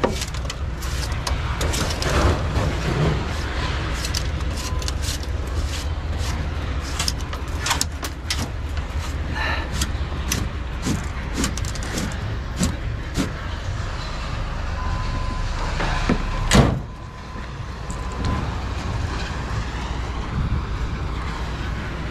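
A motor vehicle engine running steadily, with scattered knocks and clanks throughout and one louder bang about 17 seconds in.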